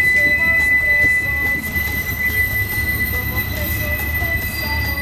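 Wheels of a double-stack container freight train squealing against the rails on a tight curve: one high, steady squeal over the low rumble of the cars rolling past.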